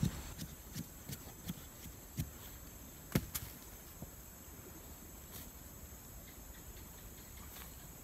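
A bamboo stick jabbed into dry dirt to dig a hole: a run of dull thuds, about two to three a second, the loudest about three seconds in. After about four seconds the jabbing stops and only faint scraping and rustling of soil being scooped out by hand is left.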